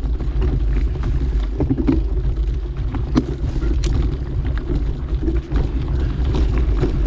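Mountain bike rolling along a dirt trail: a steady low rumble of tyres and wind on the microphone, with scattered short clicks and rattles from the bike over rough ground.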